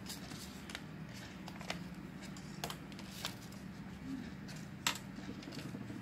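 Scissors snipping through origami paper in irregular single cuts, the sharpest about five seconds in. A low steady hum runs underneath.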